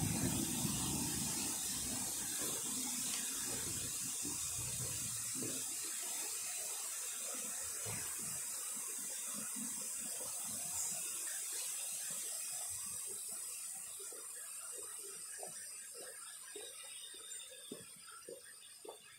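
Fountain water splashing steadily, growing gradually fainter. A low rumble dies away about five seconds in.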